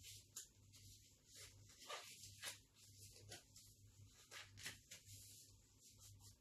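Near silence with faint, irregular rustles and clicks of gloves being pulled on and worked over the hands, above a low steady hum.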